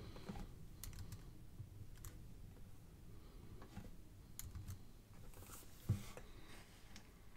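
Faint, irregular clicks of a computer mouse and keyboard, with one sharper, louder click about six seconds in.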